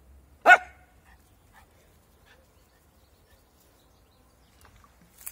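A dog barks once, short and loud, about half a second in. Only faint scattered sounds follow.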